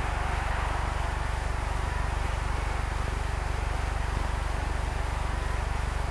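Steady low hum and even hiss from an old film soundtrack, with no narration over it.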